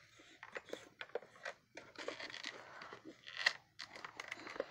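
Irregular handling noises: light clicks, scrapes and rustles of hard plastic being moved and touched, a little louder about three and a half seconds in.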